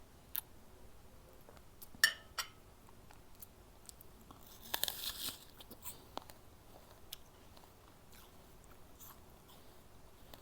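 Crisp bites into a raw apple: a sharp snap about two seconds in, then a dense spell of crunchy chewing near the middle, with scattered small crunches after.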